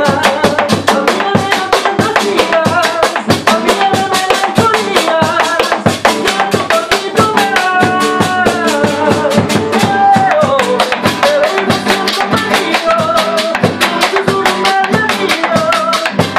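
Argentine folk music played live: nylon-string acoustic guitar strummed, a bombo legüero drum beaten with two sticks in a fast, steady rhythm, and a güiro scraped, with a melody line wavering over them.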